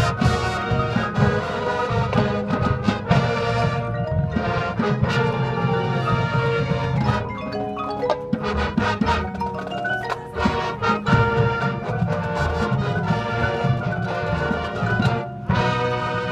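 Marching band and front-ensemble pit playing loudly together: brass chords over drums and timpani, with marimba and other mallet percussion. Near the end the sound drops out for a moment and then comes back in.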